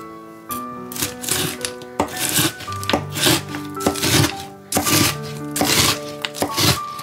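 Gentle background music over a kitchen knife slicing napa cabbage on a cutting board: sharp chopping strikes at an uneven pace, about one or two a second.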